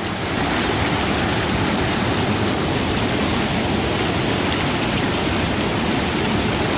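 Steady rushing of flowing water, an even noise that does not break or change.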